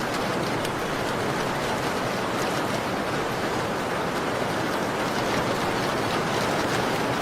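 Steady rain falling, with scattered faint crackles of a wood fire in a fireplace.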